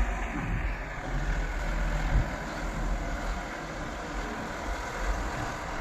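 Case 770NXe backhoe loader's diesel engine running steadily with a low rumble.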